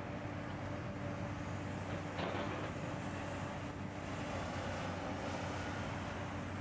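Steady diesel hum of idling heavy construction equipment, with road traffic behind it. About two seconds in comes a short gravelly scrape as a shovel digs into aggregate.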